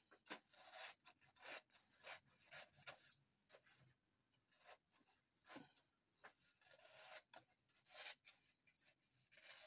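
Faint rustling and scraping of construction paper being handled, in short irregular bursts.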